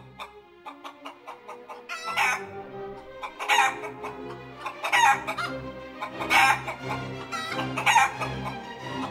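Chickens squawking: five loud short calls about a second and a half apart, over orchestral music.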